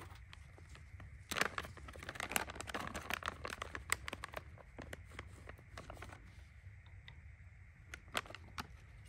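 Crinkling and tearing as a fire starter is pulled apart by hand, a dense crackle for about three seconds, then two single sharp clicks near the end.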